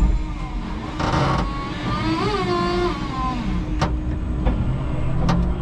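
Electric forklift working a load: a steady electric motor whine, with a higher whine that rises and falls about two seconds in, and a few sharp knocks near the end.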